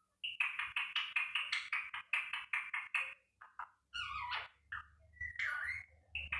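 Pet parrot chattering: a quick run of repeated high-pitched syllables, about seven a second, for nearly three seconds, then a few separate calls, some sliding down in pitch.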